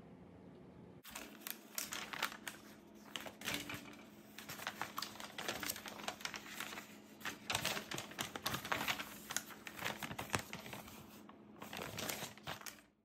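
Plastic crinkling and irregular clicking as model-kit parts and their plastic bags are handled. It starts about a second in and cuts off suddenly near the end.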